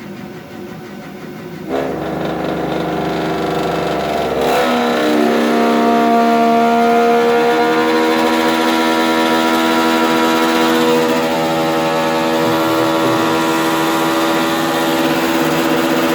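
Viessmann gas boiler running at full burner output: the burner noise steps up about two seconds in, then a loud hum of several steady tones sets in about four and a half seconds in and holds. The uploader puts this humming down to deposits or a film inside the heat exchanger.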